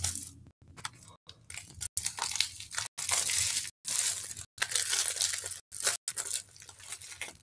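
Plastic shrink-wrap being torn and peeled off a CD jewel case, crinkling in irregular bursts.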